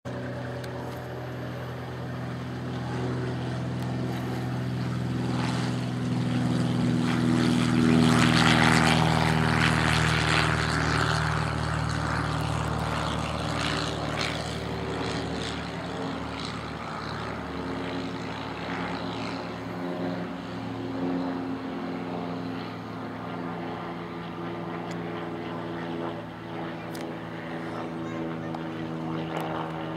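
Single-engine Cessna 172 at full takeoff power, its engine and propeller droning steadily on the takeoff roll and climb-out. It grows loudest as it passes, about eight to ten seconds in, then fades slowly as it climbs away.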